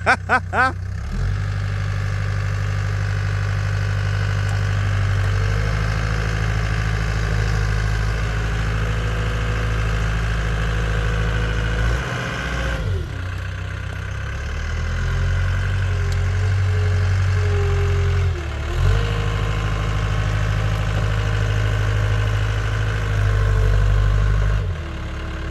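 CAT 252B skid steer's diesel engine running at high revs as it pushes against trees. Its note sags and recovers twice under load, about halfway through and again about three-quarters through.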